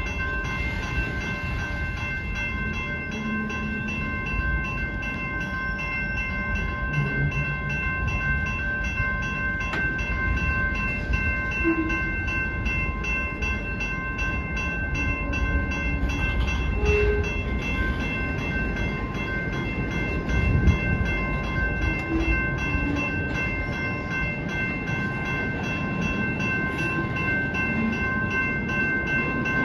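Welded-rail train's flatcars, loaded with long ribbon rail, rolling past at walking pace: a steady low rumble with scattered short squeaks and creaks. A railroad crossing bell rings steadily throughout.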